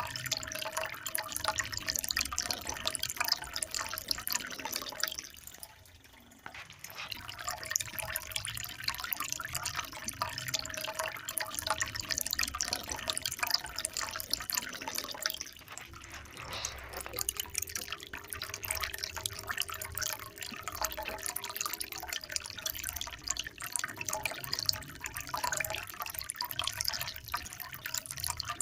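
Running water splashing and dripping steadily, with a brief lull about six seconds in and a lighter patch around sixteen seconds.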